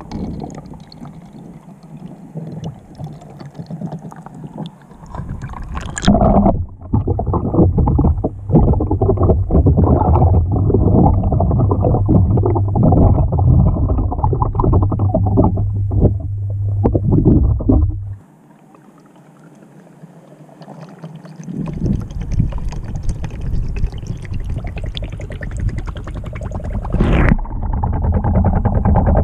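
Water sloshing and gurgling around a small waterproofed camera as a Lego boat fills and sinks, heard muffled through the housing. It grows loud about six seconds in, drops away briefly around eighteen seconds, then builds again.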